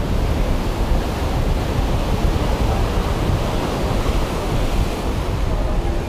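Ocean surf breaking and washing in steadily, with wind rumbling on the microphone.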